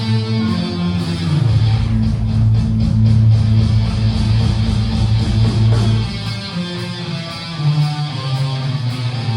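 Guitar-led music with bass, steady and full throughout, with no words sung.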